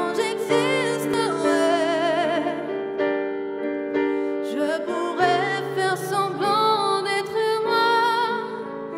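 A young woman singing a slow French chanson solo into a microphone, with vibrato on held notes, over a sustained keyboard accompaniment; her voice breaks off briefly about three seconds in, then resumes.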